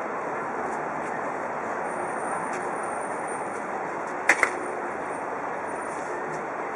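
Steady rushing background noise, with two sharp clicks in quick succession a little past the middle and a faint high whistle through the middle seconds.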